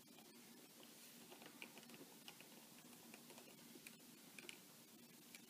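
Near silence with faint, scattered small clicks and taps from hands handling the laptop's screen panel and its tiny screws.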